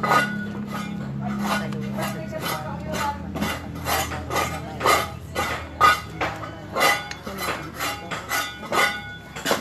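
Repeated sharp clinks and taps, irregular, about two or three a second, like hard objects knocking together. A low steady hum fades out in the first couple of seconds.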